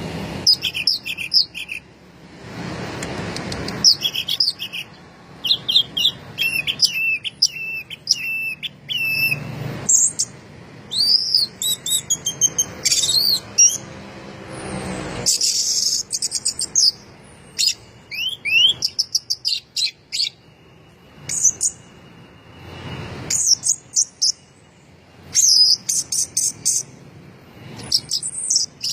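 Orange-headed thrush singing hard in bursts of quick, varied whistled and chattering phrases, with short pauses between them.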